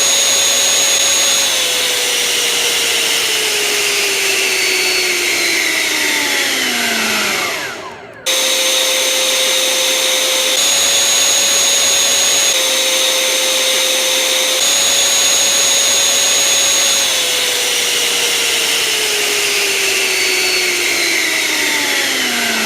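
Freewing 80mm electric ducted fan running at full throttle with a steady high whine over a loud rush of air, then spooling down, its whine falling in pitch over several seconds. About 8 seconds in it is back at full power, the whine stepping slightly in pitch a few times, and near the end it spools down again.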